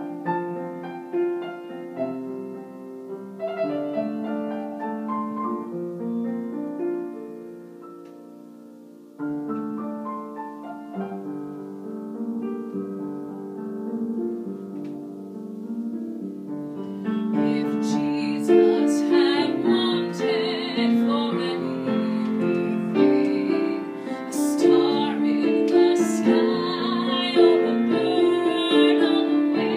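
Piano playing a slow Christmas piece. It pauses briefly about a third of the way in, then resumes. About halfway through, a woman's classically trained singing voice with vibrato comes in over the piano and grows louder.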